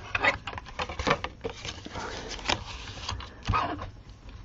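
Cardstock being handled in a paper trimmer: paper rustling with a string of sharp clicks and knocks from the trimmer as the card is set against it and the cutter is worked, one louder knock near the end.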